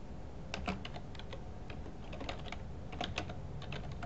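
Computer keyboard being typed on: irregular keystroke clicks in short runs with brief pauses between.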